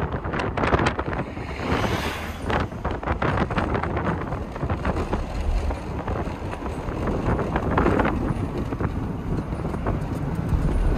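Wind rushing and buffeting over the microphone from a moving car, over the low rumble of the car and its tyres on the road. It swells and eases unevenly.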